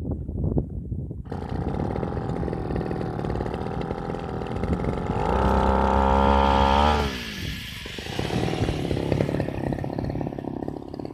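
Backpack brush-cutter engine driving a toothed rice-cutting blade, running steadily, then revved up to a high steady pitch about five seconds in with the blade spinning free, and dropping back to a lower speed about two seconds later.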